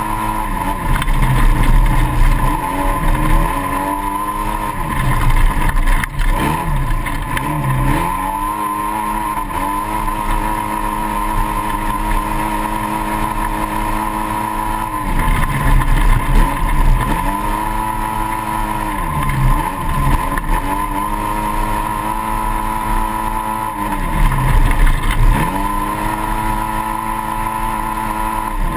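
Onboard sound of a 2008 Polaris RZR race UTV's twin-cylinder engine held at high revs at speed on dirt. The pitch drops and climbs back about five times as the throttle is lifted and reapplied.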